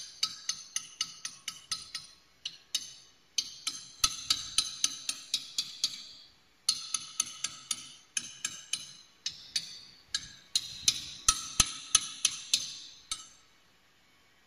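Hand hammer striking a steel punch against the tube sheet of a turbine oil cooler during tube replacement, rapid blows at about four a second in bursts with short pauses, each one ringing like struck metal. The hammering stops near the end.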